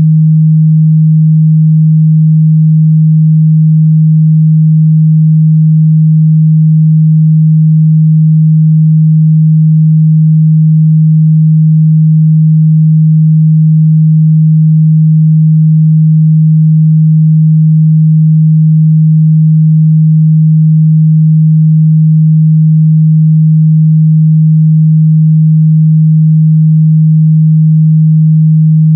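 Steady, loud 157 Hz sine-wave test tone, a single low hum with no change in pitch or level, used to check a speaker's or headphone's mid-bass response.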